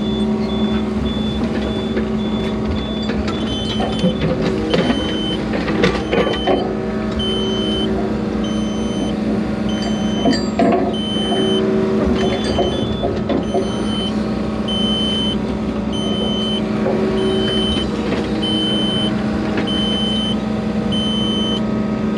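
Yanmar excavator's diesel engine running steadily, heard from inside the cab, with an electronic alarm beeping about once a second. Several knocks and clanks of metal gear come in the first half.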